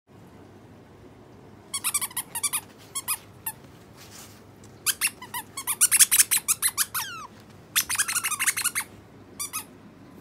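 Otter chirping: runs of rapid, high-pitched squeaky calls in several bursts, with a few calls gliding down in pitch about seven seconds in.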